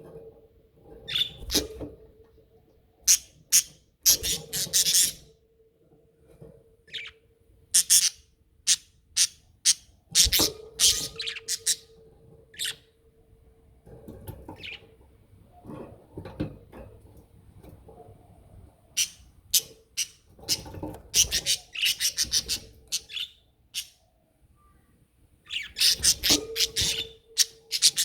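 Pet budgerigars chattering: short, high chirps and calls in irregular bursts, with brief pauses between them.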